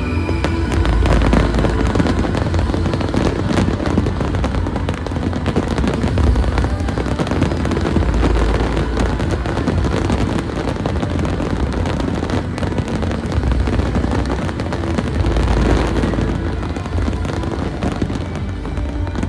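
A dense, continuous barrage of aerial fireworks: rapid crackling bursts and deep booms going off many times a second, with the show's music playing under them.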